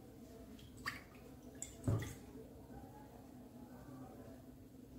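Water poured from a plastic measuring cup into an empty metal kadhai: a faint splash and trickle onto the bare pan, with a soft knock about two seconds in.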